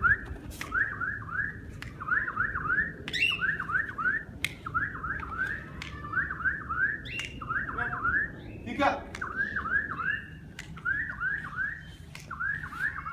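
A pet bird chirping: short rising whistled notes in quick groups of three or four, repeated over and over.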